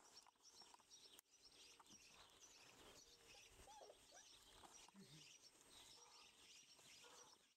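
Very faint outdoor ambience with small birds twittering steadily in the background.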